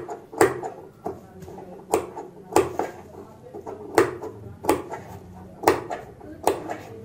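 Large tailor's shears snipping again and again, a sharp snip roughly every half to three-quarter second, about ten in all. The snips are small notches clipped into the curved seam allowance of a boat neckline so the turned neck edge lies flat.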